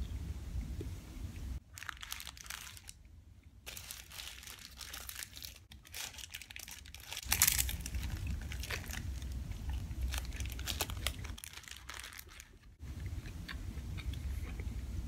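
Paper wrapper crinkling and rustling as a Jack in the Box taco is handled, with a loud crunchy bite into the deep-fried taco shell about seven and a half seconds in. Close-miked chewing at the start and near the end.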